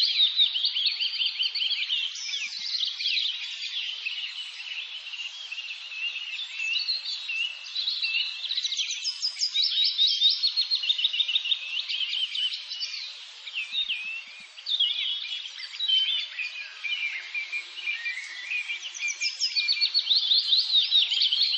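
Dense outdoor animal chorus: many overlapping high chirps and quick trills, calling constantly and cutting off right at the end.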